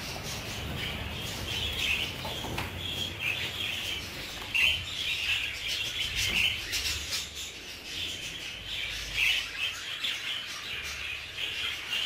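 A flock of budgerigars chattering together: a steady, dense stream of many overlapping warbling chirps and squeaks.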